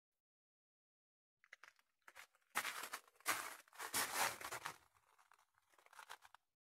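Footsteps crunching on a loose gravel and rock floor, close to the microphone. They start after about a second and a half of silence, are loudest in the middle and fade out near the end.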